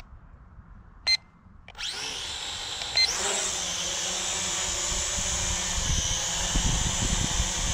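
SNAPTAIN SP500 quadcopter's motors and propellers spinning up with a rising whine about two seconds in, then settling into a steady high-pitched whine as it lifts off and hovers. A short electronic beep sounds about a second in and again just before the whine settles, and a low rumble runs under the whine in the second half.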